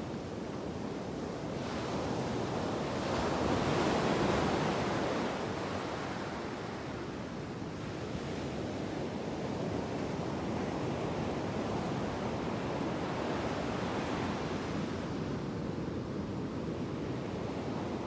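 Storm surf breaking and washing up over a pebble beach: a continuous rush of waves and foam that swells loudest a few seconds in, eases, then builds again.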